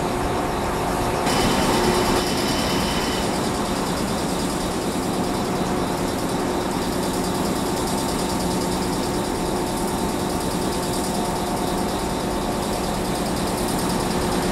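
DD16 diesel locomotive and KuMoYa 143 electric service car moving slowly, coupled together: a steady engine and machinery drone with a few constant humming tones. About a second in, a hiss joins, with a brief high tone over it.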